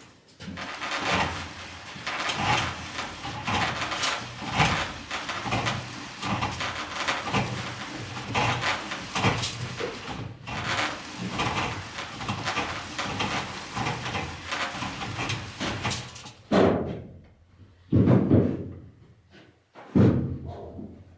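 Continuous rustling and clatter of electrical cables being handled and pulled along a cable tray, then three separate louder knocks or thumps near the end.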